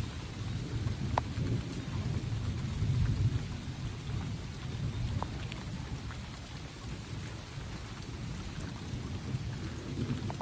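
A continuous low rumble that swells a little a few seconds in, with a few faint sharp ticks over it.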